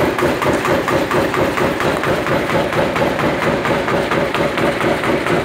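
Sawdust briquetting machine running under load, its motor and press making a steady mechanical drone with a fast, even knocking rhythm.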